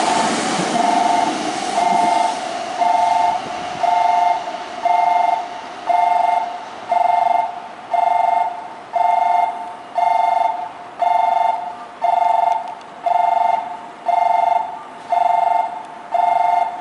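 Electronic railway warning bell sounding a two-note tone about once a second, each stroke sharp then dying away, signalling an approaching train; a departing train's running noise fades out in the first second or two.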